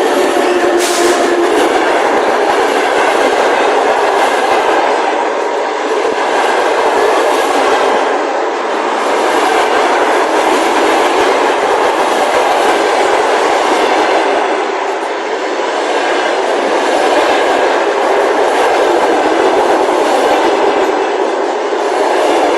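ЭП1 electric locomotive and its passenger coaches passing at speed: a loud, continuous rush of wheels on rails that holds steady for the whole time. A horn tone is dying away about a second in.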